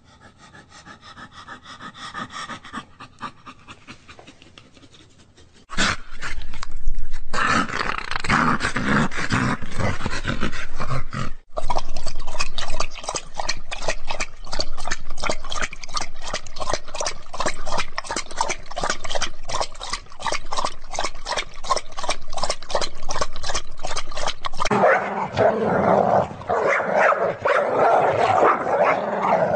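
A dog making loud, repeated vocal sounds: quiet at first, then loud from about six seconds in, with a long run of fast, even pulses at about four a second and a louder, denser stretch near the end.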